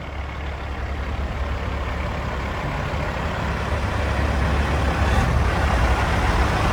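A big truck driving past close by: its low engine rumble and road noise build steadily louder over several seconds.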